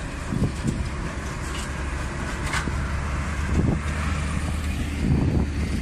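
Heavy diesel trucks hauling steel drive past, a steady low engine and tyre rumble that swells a few times as they go by.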